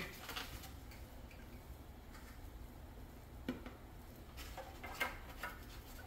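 A few faint taps and clicks as eggs are handled from a carton and set into a pot of boiling water, the clearest in the second half, over a low steady hum.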